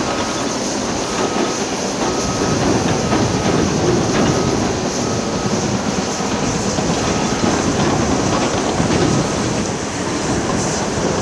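Tracked construction machine running and moving on its steel tracks, with a steady clatter. A reversing alarm beeps about once a second and stops about three quarters of the way through.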